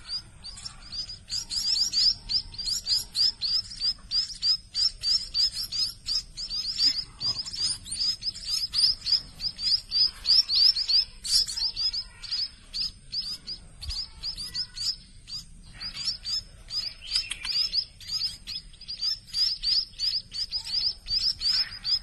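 Nestling songbirds begging to be fed: a rapid, continuous string of high chirps, several a second, from a brood of hungry chicks gaping for food.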